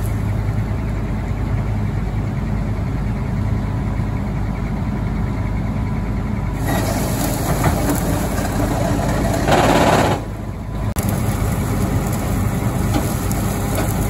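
Heavy diesel farm machinery running steadily, then straining harder from about six and a half seconds in, loudest near ten seconds, before easing off. It is an attempt to pull through the trouble that doesn't quite succeed.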